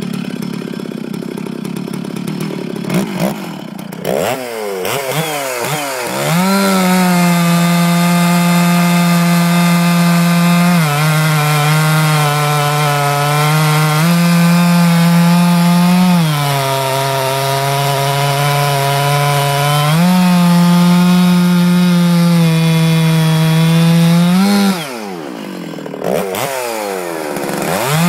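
Stihl 066 chainsaw with a stock early thin-base cylinder idling, then revved to full throttle and cutting rounds off a log. The engine pitch drops each time the chain loads in the cut and climbs again as it frees up, several times over. Near the end it falls back to idle briefly, then revs up again.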